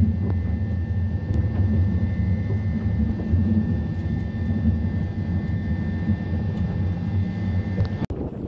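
Electric metre-gauge train on the Centovalli railway running along a station platform: a steady low rumble with a thin steady high whine. It cuts off abruptly near the end.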